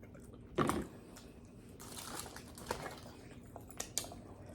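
Wet mouth sounds of eating at a close microphone: a short smack or slurp about half a second in, then soft lip-smacks and clicks of chewing.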